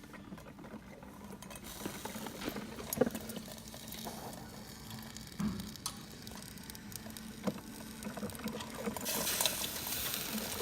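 DeLonghi drip coffee maker brewing, its heater boiling the water through with a sputtering, bubbling hiss and scattered pops; the hiss grows louder near the end. The machine is running correctly after a replaced fuse.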